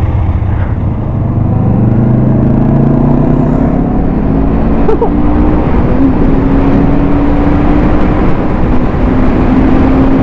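Motorcycle engine accelerating, its pitch climbing steadily for several seconds, then holding steady at speed, over a constant rush of wind and road noise.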